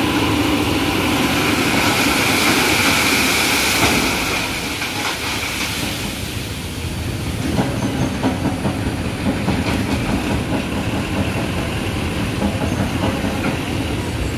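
Dump truck tipping a load of gravel, a steady rushing hiss for about four seconds, then the stones rattling and clattering from about halfway through.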